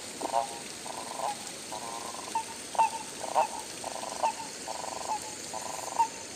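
A frog calling over and over, about once a second: each call is a short rattling croak, with sharp single chirps between the calls. A steady high-pitched hiss runs underneath.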